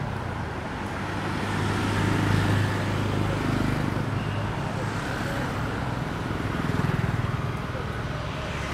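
Street traffic of motor scooters, motorbikes and cars, with engine hum that swells as motorbikes pass close about two seconds in and again near the end.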